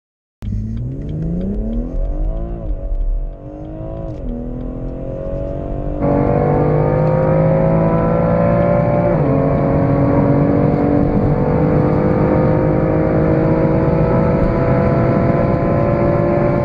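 BMW turbocharged straight-six accelerating hard at full throttle from a standstill. The pitch climbs through the gears and drops at each upshift: twice in the first four seconds or so, and again about nine seconds in. About six seconds in, the sound cuts abruptly to a louder recording, the M2's engine, still pulling steadily higher.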